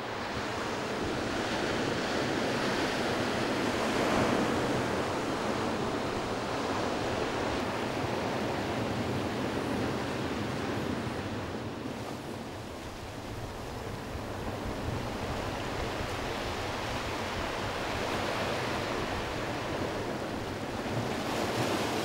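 Sea surf breaking and washing over a pebble and rock beach, swelling and easing in slow surges, loudest about four seconds in, softer in the middle and building again near the end.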